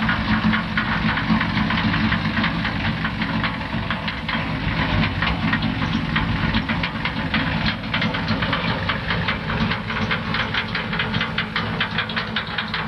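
Compact tractor engine running steadily as it pulls an empty tipping trailer over grass, with a dense rapid clatter over the engine hum.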